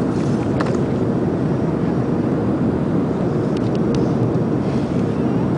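Jet airliner cabin noise heard from a window seat: the engines and rushing airflow make a steady low rumble while the plane descends toward landing.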